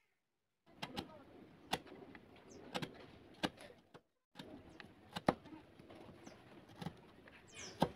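Steel chisel paring and chopping into softwood by hand: a crunching, scraping noise of wood fibres being cut, with sharp snaps about once a second as chips break away.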